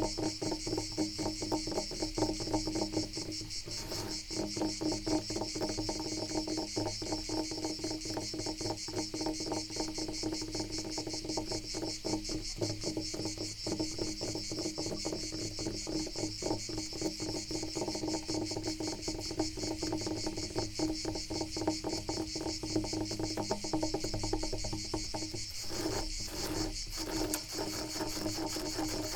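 Rapid, continuous scratching on wood, heard as a dense run of small strokes, over a steady high-pitched insect trill.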